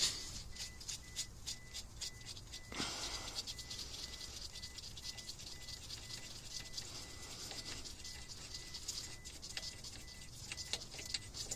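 Scattered light clicks and rattles at an irregular pace, with a single dull thump about three seconds in.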